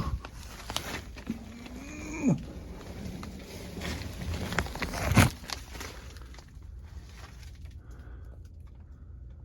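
A person moving about in a cramped crawl space: scraping and small knocks, a short groan that rises and then drops off about two seconds in, and a louder thump about five seconds in.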